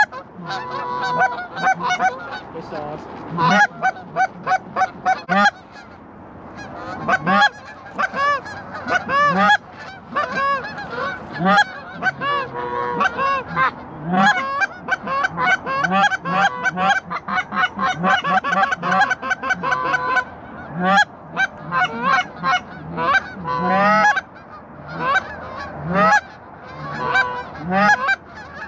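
A flock of Canada geese honking as they fly overhead: a dense, overlapping run of short honks, several calls a second throughout.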